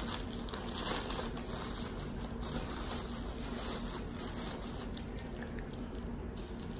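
Steady background room noise: an even hiss with a faint low hum underneath and no distinct events.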